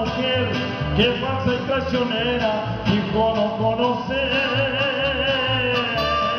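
Mariachi band playing live, with guitars strumming over a steady pulsing bass and a trumpet. A sustained wavering melody line comes in about four seconds in.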